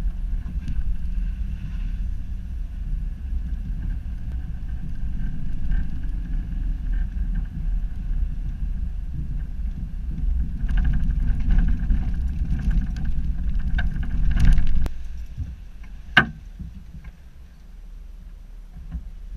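Road and engine noise inside a moving pickup truck's cabin: a steady low rumble that drops away about fifteen seconds in. A sharp click follows about a second later.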